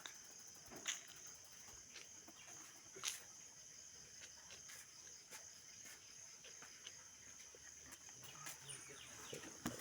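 Faint, steady high-pitched chirring of crickets, with a few light clicks of handling.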